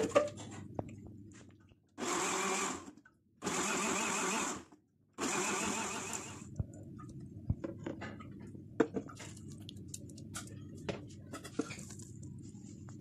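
Deuron electric blender grinding boiled spinach and green chillies into a puree, run in three short bursts of about a second each with brief pauses between. Afterwards, scattered light knocks and clicks.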